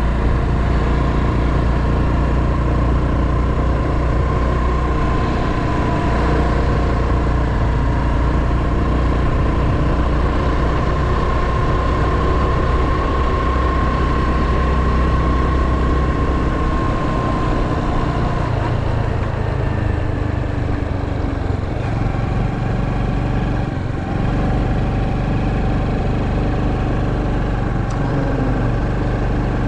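Honda Super Cub 110's single-cylinder four-stroke engine running steadily under way. About two-thirds of the way through, the engine note changes and a steady whine in it fades out.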